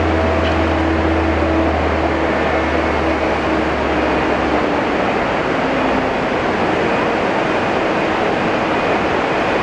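Scania diesel coach idling at the platform: a steady, loud running hiss with a faint even tone, and a deep low hum that drops away about halfway through.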